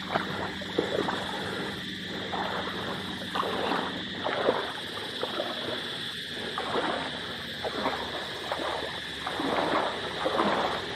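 Seawater lapping and splashing against shoreline rocks in irregular washes.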